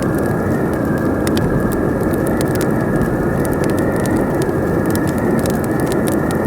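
Howling wind, a steady rushing noise with a thin whistling tone that wavers slightly in pitch, over a crackling fire giving scattered sharp pops that come more often near the end.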